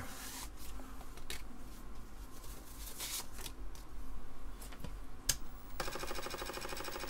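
A few light handling clicks, then an Apple Disk II floppy drive's head stepper rattling for about a second and a half near the end as it steps the read/write heads back toward track zero, while the drive fails to read.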